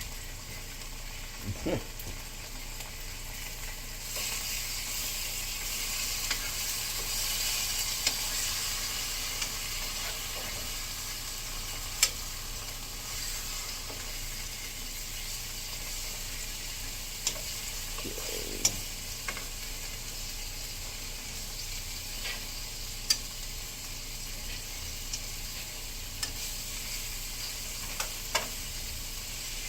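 Food sizzling in a frying pan, swelling about four seconds in and then settling to a steady sizzle, with a few sharp clicks scattered through.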